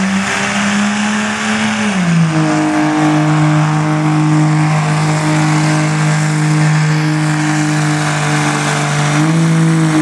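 Dodge Ram dually's Cummins straight-six turbodiesel at full throttle pulling a weight-transfer sled, a loud steady drone. Its pitch drops about two seconds in, holds low and steady, then climbs again near the end.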